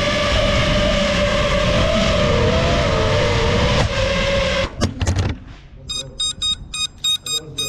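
FPV quadcopter's brushless motors and props whining, the pitch wavering with the throttle. About 4.7 s in there are a few sharp knocks as it crashes and the whine cuts off. From about 6 s, quick electronic beeping goes on, several beeps a second, while the quad lies on the ground.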